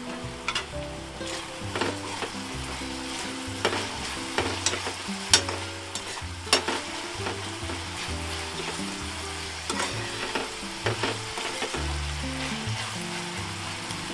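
Chopped onions and tomatoes sizzling in hot oil in a pan, stirred with a steel spoon that clicks and scrapes against the pan a dozen or so times.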